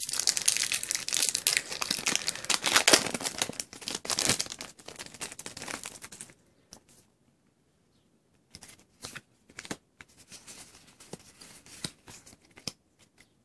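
A foil Pokémon booster pack is torn open and crinkled for about six seconds. After that comes a quieter stretch of light clicks and rustles as the trading cards inside are handled and shuffled.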